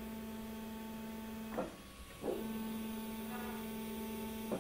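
DTF printer's film-feed motor running with a steady hum, driving the film backwards through the rollers. It stops a little over a second and a half in and starts again about half a second later.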